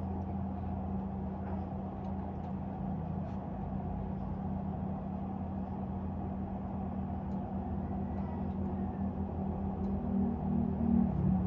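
Steady low rumble with a humming drone, like traffic or a running vehicle, with a few faint scattered ticks; it swells slightly near the end.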